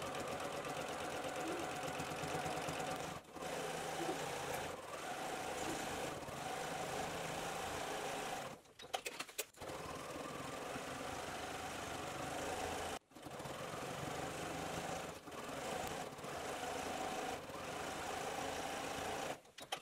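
Domestic sewing machine running at a steady speed while free-motion quilting through layered fabric and batting. It stops briefly several times, longest about nine seconds in.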